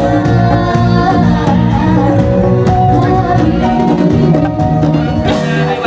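Live gambus band playing a song, with hand-drum percussion under the melody and singing.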